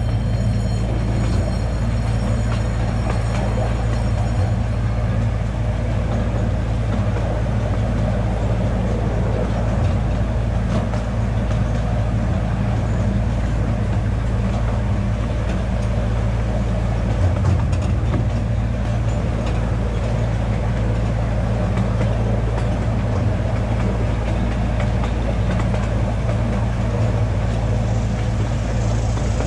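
Miniature ride-on zoo train running along its track, heard from one of its cars: a steady low drone with rumble from the wheels.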